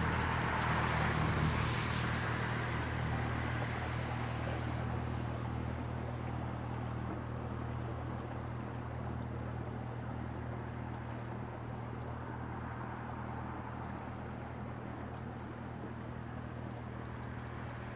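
Motor cruiser's inboard engine running at a steady low hum as the boat passes, slowly fading as it moves away.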